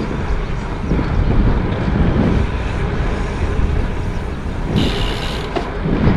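Strong wind buffeting the microphone as a steady, uneven low rumble, with a short hiss about five seconds in.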